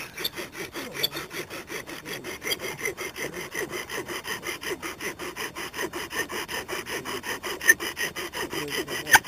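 Bow drill fire-lighting: a wooden spindle spun back and forth by a cord bow, grinding into a wooden hearth board in a fast, even rhythm of rubbing squeaks that rise and fall with each stroke, with a couple of sharper knocks near the end. The friction is smoking, charring the wood dust toward an ember.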